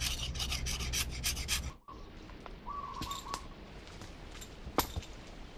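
LT Wright GNS carving knife shaving bark and wood off a green strawberry guava stick in rapid scraping strokes, several a second, that stop abruptly about two seconds in. After that comes quieter forest sound with one short whistled bird call and a few light taps.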